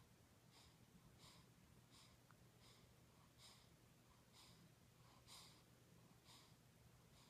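A sleeping newborn baby breathing fast and snuffly, with short breathy puffs coming regularly about once every three-quarters of a second, faint.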